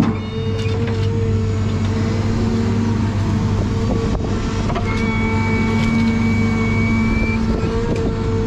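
John Deere 1010G forwarder running steadily, its diesel engine humming under the hydraulic whine of the crane as the empty grapple swings out and lowers. A thin high whine comes in about halfway through and holds for a couple of seconds.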